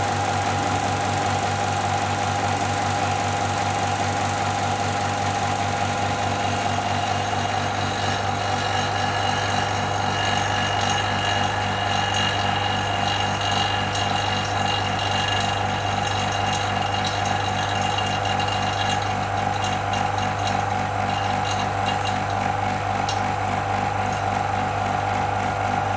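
Small electric vacuum pump running steadily with a deep, even hum and a fast pulsing, pulling suction for a vacuum filtration through a Büchner funnel.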